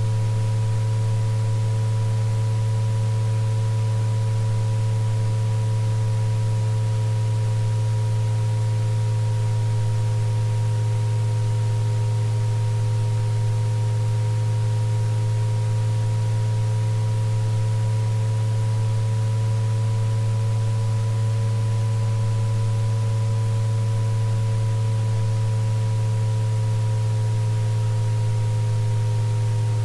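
Synthesized tinnitus-relief tones: a loud steady low hum with a few fainter higher pure tones above it that slowly waver up and down in pitch, over a faint even hiss.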